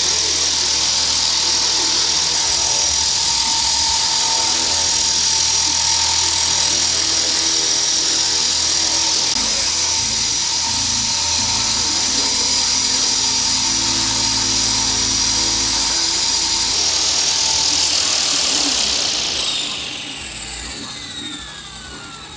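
Blade CP Pro electric RC helicopter hovering: a steady, high-pitched whine from its motors and spinning rotors. About nineteen seconds in, the pitch falls and the sound fades as the rotors spin down once it has landed.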